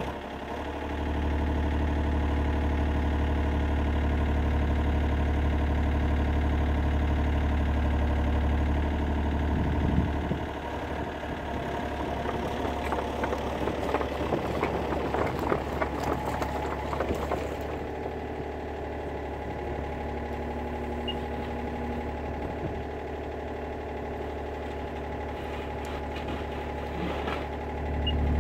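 Yanmar B37 mini excavator's diesel engine running steadily. It is louder for about the first ten seconds and again near the end, and quieter in between, where the arm and bucket rattle and knock a few times.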